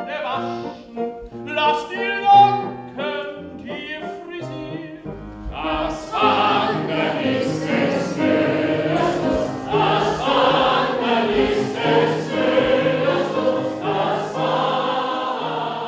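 A few voices sing with piano accompaniment, then about five seconds in many more voices join and the sound becomes a loud, rhythmic group sing-along of a large audience singing together with the performers.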